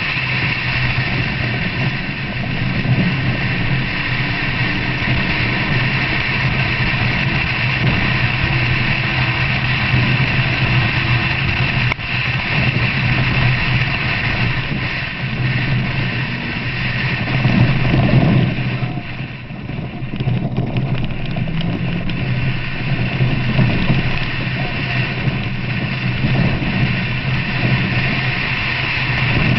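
Vehicle engine running steadily as it drives along a dirt track, over a constant hiss of road and wind noise. About two-thirds of the way through, the sound swells briefly and then drops for a moment before settling back.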